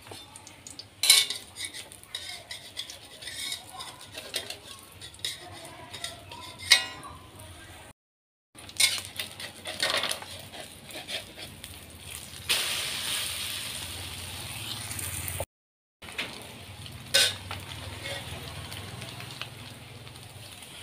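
A metal spatula stirs and scrapes in an aluminium wok while scrambled eggs and chopped greens fry in oil, with a few sharp clinks of the spatula on the pan. A steadier sizzling hiss rises for a few seconds past the middle, and the sound drops out twice briefly.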